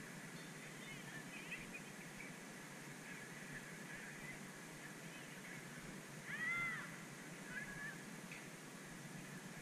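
Geese honking: a run of short arched calls, the loudest about six and a half seconds in, over a steady low background hum.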